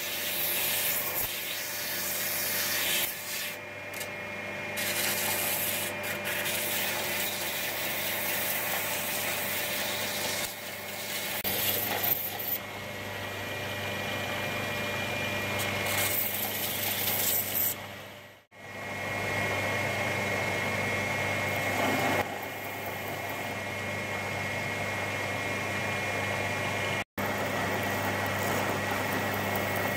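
Bench belt sander running, a knife's linen micarta handle pressed against the moving abrasive belt to grind it to shape: a steady motor hum under a grinding hiss that swells and eases as the handle is worked. The sound breaks off briefly twice, once past the middle and again near the end.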